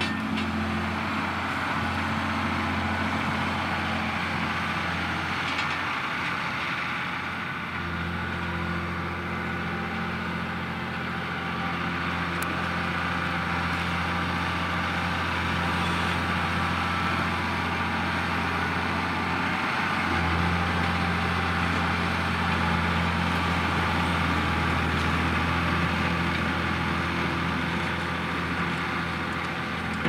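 John Deere 6150R tractor's six-cylinder diesel engine running steadily under load while pulling a five-furrow semi-mounted plough through the soil. The engine note shifts slightly about a quarter of the way in and again about two-thirds of the way through.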